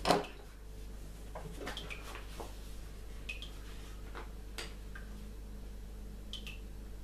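Drawing papers and tools handled on a wooden desk: a sharp knock with a paper rustle at the start, then faint scattered clicks and rustles over a low steady hum.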